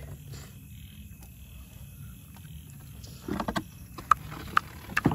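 A metal ladle scooping thick, sticky thothal out of a cooking pot, then knocking sharply on a steel plate about four times near the end to drop the sweet off.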